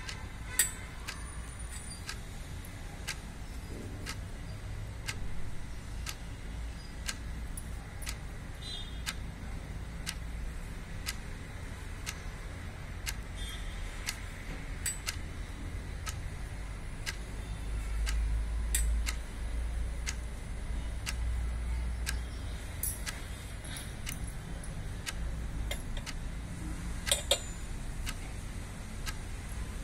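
A clock ticking steadily about once a second over a low rumble, with an occasional louder click.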